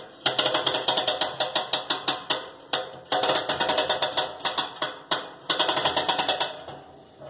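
Winch ratchet clicking rapidly, about eight clicks a second, as the winch is cranked to raise the gate between the smoker's cabinet and cooking chamber. The cranking pauses briefly twice and stops near the end.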